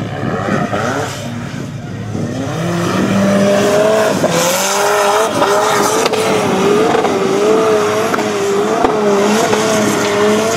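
Formula Offroad hillclimb buggy's engine at high revs on a steep sand climb. The revs rise about three seconds in and are then held high, the pitch wobbling up and down as the tyres spin in the sand.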